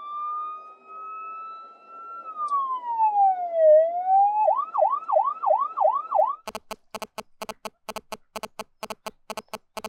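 Siren sound effect: a wail that rises slowly, then falls, then switches to a fast yelp of about four quick rising sweeps a second. About six and a half seconds in it gives way to a rapid, stuttering electronic pulsing.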